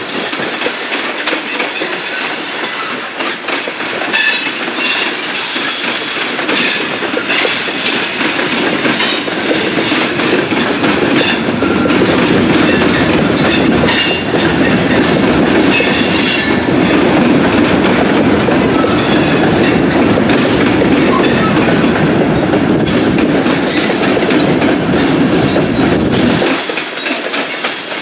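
Railroad cars rolling past, their wheels clattering over rail joints, with short high wheel squeals on and off. Near the end the low running noise drops away suddenly.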